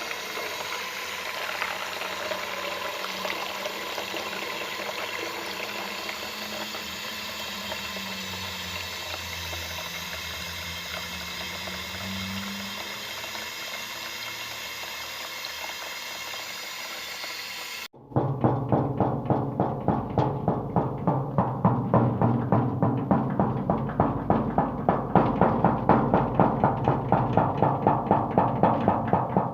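Water running steadily, an even rushing hiss like a tap or shower, for most of the first two-thirds. Then an abrupt cut to loud music with a steady beat.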